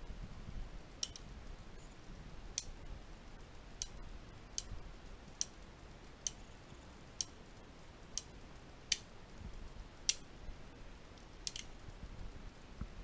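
Uberti Cattleman single-action revolver clicking as its cylinder is turned by hand: about eleven sharp metallic clicks, roughly one a second, as each chamber indexes.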